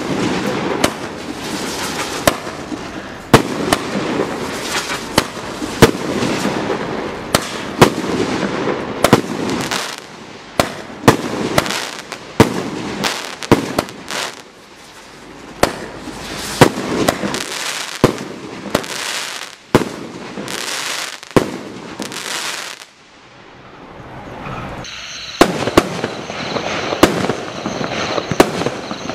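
1.3G firework barrage cakes firing: a rapid series of sharp bangs over dense crackling from bursting stars. The firing eases off about 23 seconds in, and a second cake starts its shots about two seconds later, with a steady high tone under them.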